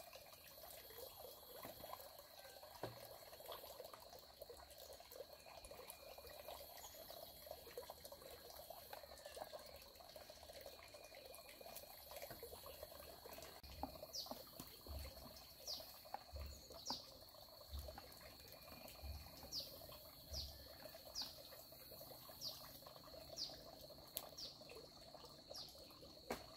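Near silence with a faint steady high-pitched tone, and from about halfway a series of short falling chirps, roughly one a second.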